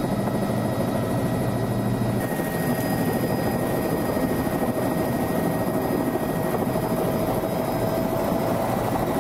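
Helicopter engine and rotor noise heard from inside the cockpit: a steady, dense drone with a thin steady whine. A low hum underneath drops out about two seconds in.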